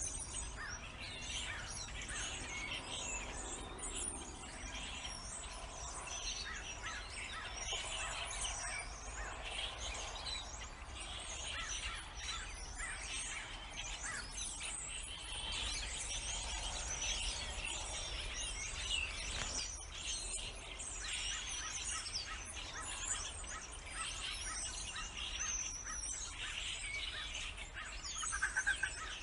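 Many birds chirping and calling at once, a dense chorus of overlapping short calls, with one louder call near the end.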